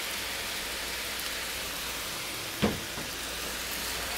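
Fried rice with soy sauce sizzling steadily on a hot Blackstone flat-top griddle, with one short knock about two and a half seconds in.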